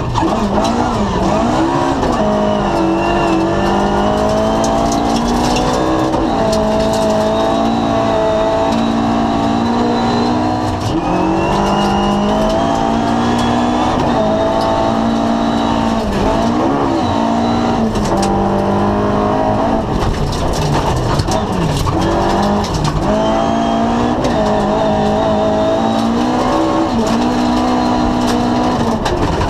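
Ford Escort RS2000 rally car engine at full throttle on a gravel stage, heard from inside the cabin. It climbs in pitch through each gear and drops back at every shift or lift, over and over, with rattles and knocks on top.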